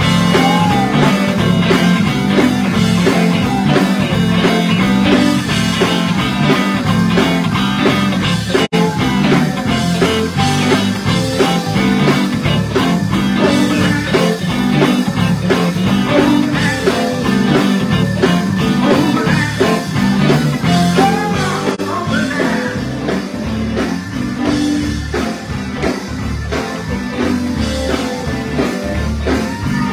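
Live church band playing a song with a steady drum beat, with voices singing along over it.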